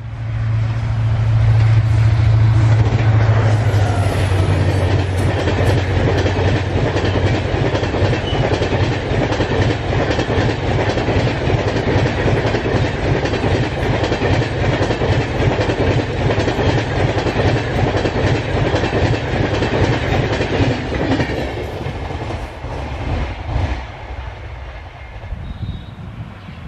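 Diesel-hauled express passenger train passing at speed close to the track: a steady low drone strongest in the first several seconds, under a rapid, continuous clickety-clack of coach wheels over the rails. The sound eases and grows quieter over the last few seconds.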